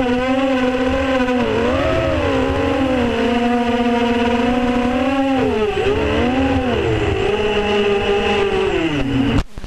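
FPV racing quadcopter's motors and propellers whining, heard from the onboard camera. The pitch holds steady, dips and swoops twice as the throttle changes, then falls and cuts off near the end.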